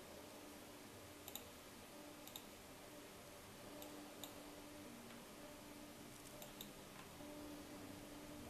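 Faint computer mouse clicks, six or so scattered through the stretch, over quiet room tone with a faint low hum that comes and goes.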